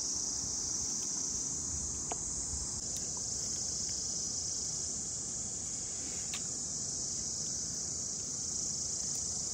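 Continuous high-pitched insect chorus, holding steady, with a few faint clicks.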